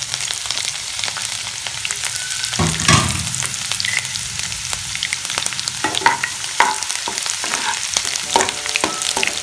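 Chopped garlic, ginger and coriander stems sizzling as they fry in hot oil in a non-stick kadhai. Several sharp knocks against the pan, the loudest about three seconds in, and from about six seconds in a steel spatula stirring and scraping.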